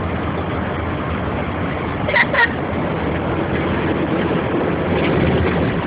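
Steady road and engine noise from inside a car driving on wet, flooded streets, with two short squeaks about two seconds in.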